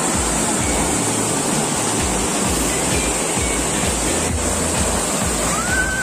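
Waterfall: falling water rushing steadily and loudly.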